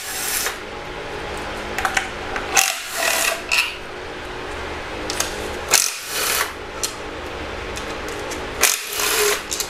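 Cordless power tool with a 12 mm socket spinning out timing-cover bolts in four short runs about three seconds apart, with a few short clicks between runs.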